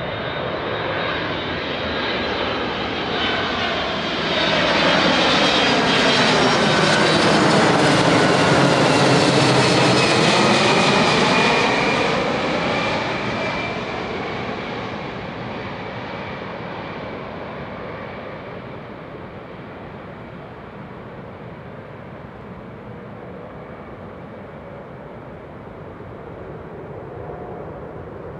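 Boeing 767-332ER twin-engine jetliner passing overhead. The engine rumble and whine swell up, loudest from about five to twelve seconds in, and the whine drops in pitch as it goes by. The sound then fades away.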